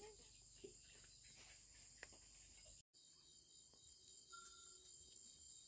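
Faint, steady high-pitched insect chorus in the forest. It drops out for an instant a little under three seconds in, then carries on at a slightly different pitch.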